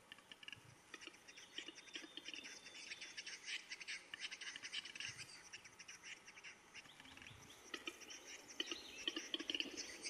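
Western capercaillie lek: a displaying male's song of rapid dry clicks and scratchy, scraping notes in dense runs that thicken toward the end.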